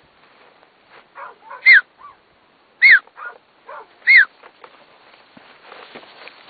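A dog yelping: three loud, high calls about a second apart, each falling in pitch, with softer whining calls between them.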